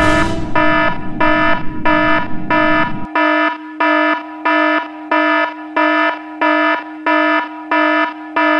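Spacecraft cockpit warning alarm sound effect: an electronic alarm pulsing about one and a half times a second over a steady low tone, signalling the shuttle going down. A low rumble underneath cuts off suddenly about three seconds in.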